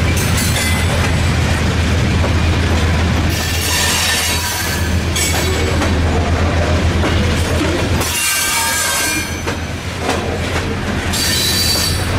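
Covered hopper cars of a slow freight train rolling past close by: a steady rumble of wheels on rail, with high-pitched wheel squeal breaking in three times, about three, eight and eleven seconds in.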